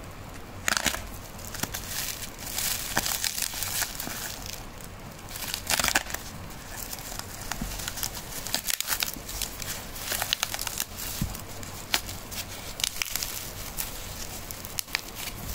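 Plastic cling film, packing tape and cardboard wrapping of a parcel crinkling and tearing as it is cut and pulled open, in irregular crackles and rustles.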